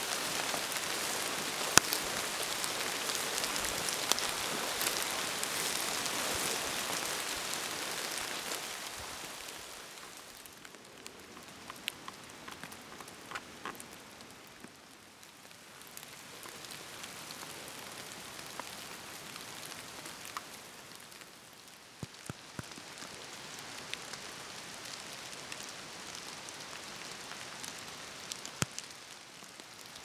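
Forest fire burning: a steady hiss with many scattered crackles and pops, louder for the first nine seconds or so and then quieter.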